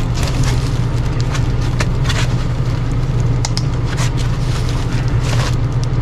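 Foam packing blocks and plastic-wrapped equipment being handled and pulled out of a cardboard box, with irregular rustling and crinkling, over a steady low hum.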